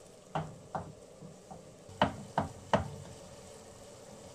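Spoon knocking and scraping against a non-stick frying pan while stirring and mashing gram flour roasting in ghee: a string of short knocks, the three loudest coming in quick succession about two seconds in.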